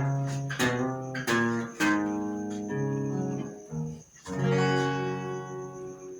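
Acoustic guitar strummed and picked, chords ringing out in an instrumental passage of a moda, with a short break about four seconds in.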